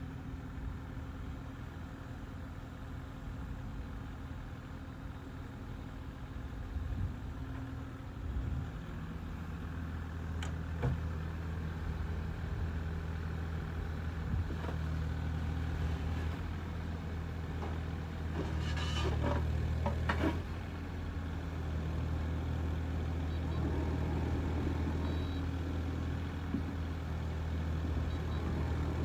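Kubota KX040-4 mini excavator's 40-horsepower diesel engine running steadily, its note getting louder and fuller about eight seconds in. A few sharp knocks and clanks come through the middle.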